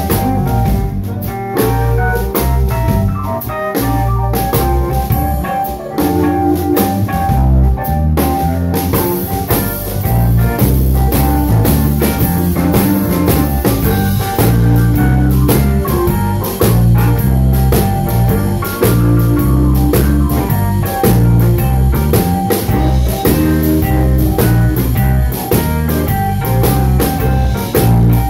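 Live blues band playing an instrumental passage: an organ sound from a Roland RD-700NX stage piano over drum kit and guitar, with the cymbals growing louder about a third of the way in.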